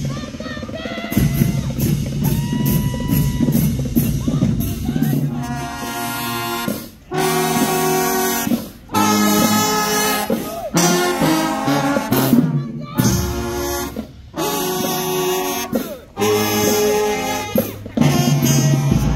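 High school marching band playing while on the march: a brass section of trumpets and trombones over drums. The music cuts off abruptly and comes back several times.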